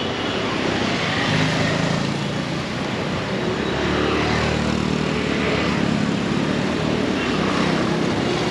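Street traffic: motorcycle and car engines running and passing close by, a steady engine drone over road noise.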